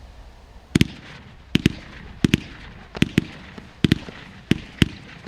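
Low-noise retail fireworks going off: about a dozen sharp pops, many in quick pairs, following each other less than a second apart.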